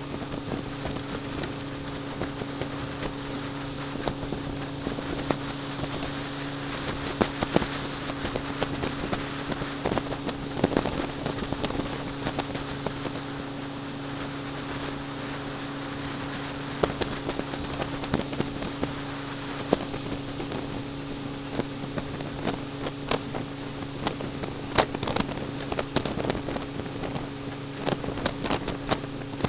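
A small ferry boat's engine running steadily, a constant low hum, with a rush of wind over the microphone. Brief sharp knocks and crackles come and go, more often near the end.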